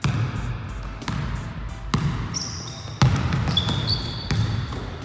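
A basketball bouncing on a wooden gym floor about once a second as a player dribbles, five bounces in all. Short high squeaks of sneakers on the floor come in the middle and the second half.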